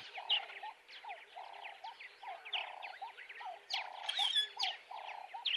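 Wild birds calling: many quick high chirps over a lower call that repeats about three times a second.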